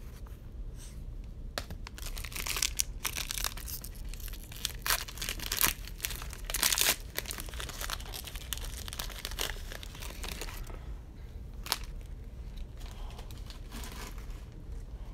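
Trading card packs being torn open and their wrappers crinkled, a run of tearing and crackling that dies down about ten seconds in, followed by quieter handling and one sharp click.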